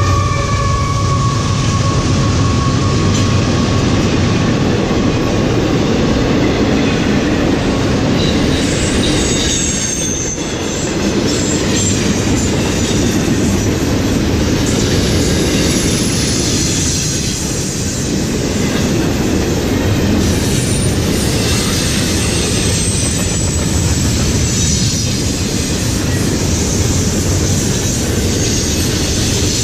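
Double-stack container cars of a freight train rolling past at close range: a steady rumble and rattle of steel wheels on the rails. Thin, high wheel squeal cuts in now and then, around ten seconds in and again as a slowly falling screech from about twenty seconds.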